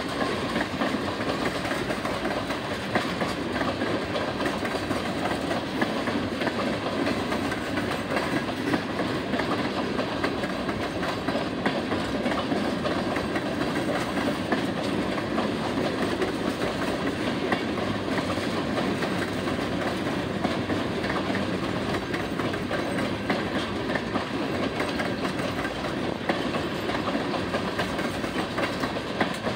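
Freight train tank cars rolling past: a steady rumble of steel wheels on rail, with many small clicks of the wheels.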